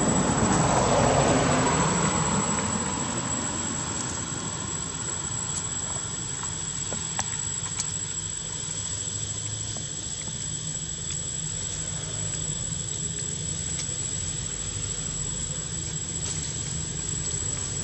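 Engine of a passing vehicle: it swells about a second in and fades over the next couple of seconds, leaving a steady low rumble with a few faint ticks.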